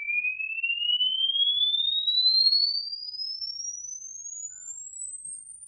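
Sine-wave frequency-sweep test tone from a home-theatre speaker system, part of a full-range 20 Hz to 20 kHz room measurement: a single pure tone gliding steadily upward in pitch through the upper treble. It grows fainter from about halfway through.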